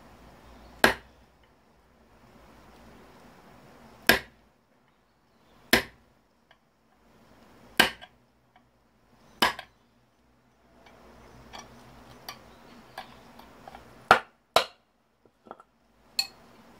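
Hammer striking a small electric motor's armature: eight sharp blows at uneven intervals of one to four seconds, with lighter taps and clinks between them near the end.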